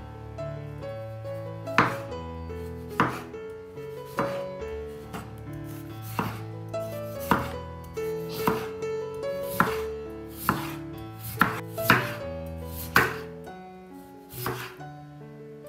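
Chef's knife slicing through peeled raw potatoes and knocking on a bamboo cutting board, about one cut a second, with soft background music underneath.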